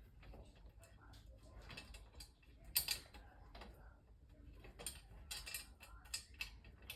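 A screw being turned by hand into the steel frame of a flat-pack dresser, making faint, irregular small clicks and ticks of metal on metal, with one sharper click about three seconds in.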